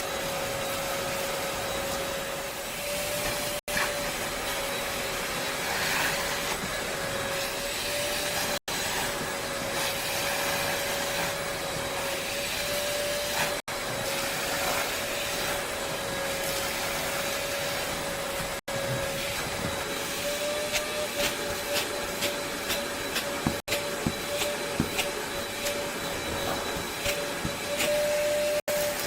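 A small motor running steadily with a constant whine and airy hiss, with a few light clicks in the second half.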